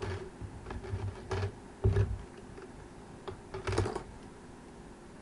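Hands rolling hair and fitting hairpins close to the microphone: irregular small clicks and rustles with a few low thumps, the loudest about two seconds in and again near four seconds.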